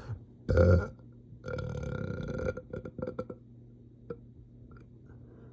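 A person burping: a short loud burp about half a second in, then a longer drawn-out burp lasting about a second, followed by a few small clicks.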